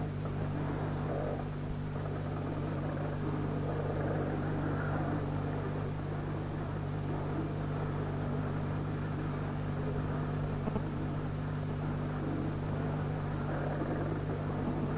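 A steady low hum with an even rushing noise over it, unchanging throughout.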